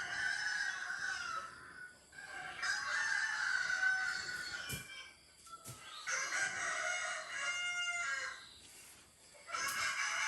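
Rooster crowing repeatedly: four long crows of about two seconds each, one after another with short gaps, the first already under way.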